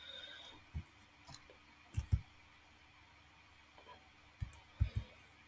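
Computer keyboard keys clicking about six times, some in quick pairs, with pauses between.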